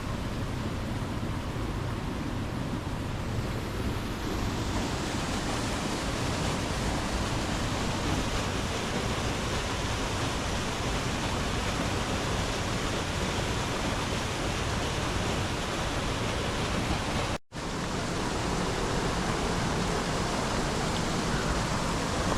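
Waterfall rushing steadily, a dense, even roar of falling water that grows a little brighter about four seconds in. It cuts out for a split second about three-quarters of the way through.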